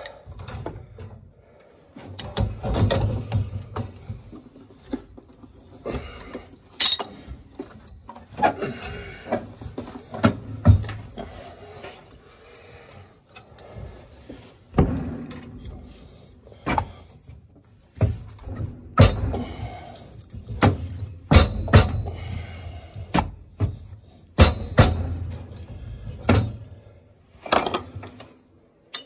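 Irregular metal clanks, knocks and rattles as a heavy old gas valve is worked loose from the boiler's gas piping with a pipe wrench and lifted off. There are sharp knocks throughout with rumbling handling noise in between.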